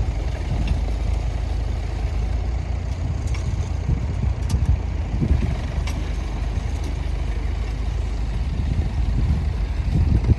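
Tractor engine running steadily with a low rumble.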